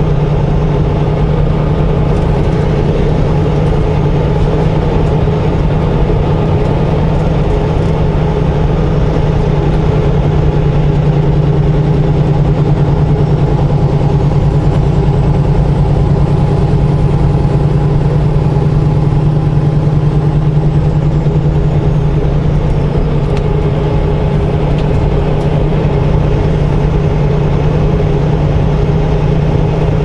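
Semi truck's diesel engine running steadily at highway cruising speed, a constant low drone with road noise, heard from inside the cab.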